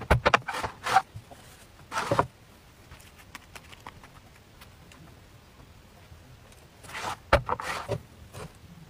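Knocks and clatter from handling an electric dip-style crepe maker on the table. The sounds come in three short spells: at the start, about two seconds in, and again near the end.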